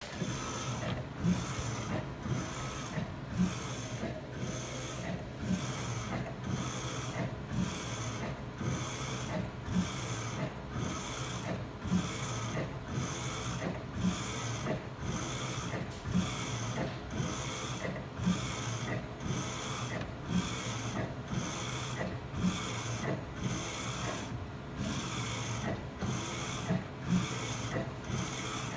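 Ricoh direct-to-garment printer printing on a T-shirt: the print-head carriage sweeps back and forth about once a second over a steady hum. A louder knock at one end of its travel comes about every two seconds.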